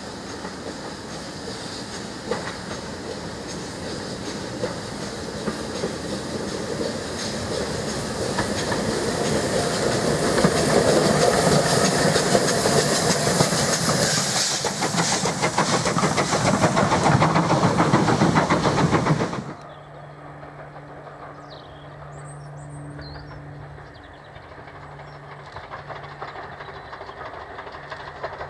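GWR 6400-class pannier tank 6430 working an auto train close by: steam locomotive noise with hissing steam and rail clatter, growing louder as it passes. It cuts off suddenly about two-thirds through to a much quieter steady drone with a few bird chirps.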